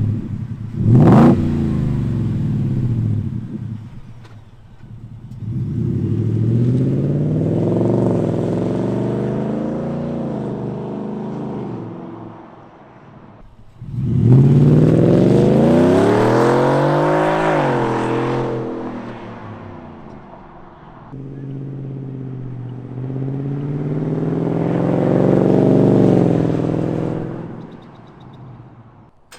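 2021 Ford F-150 through an MBRP 3-inch single side-exit exhaust, its engine note rising and falling: a quick blip about a second in, then three longer swells that build and fade away, the middle one the loudest.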